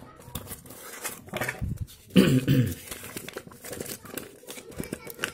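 Paper rustling and crinkling as a folded instruction leaflet and its packaging are handled and opened out. There is a short spoken sound from a voice about two seconds in.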